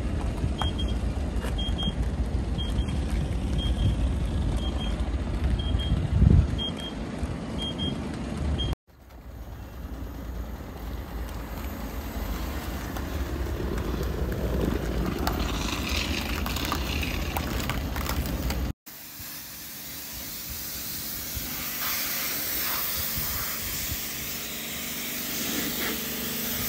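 Self-service car wash pressure lance spraying water and foam onto a car's bodywork: a steady hiss of spray, broken by two abrupt cuts. In the first part a short high electronic beep repeats about once a second, and there is a thump about six seconds in.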